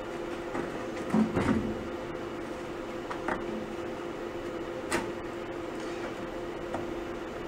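Knocks and clicks of hands setting a plasma cutter torch and a steel straightedge against sheet metal, with a short clatter about a second in and a sharp click about five seconds in, over a steady machine hum. No cutting is heard.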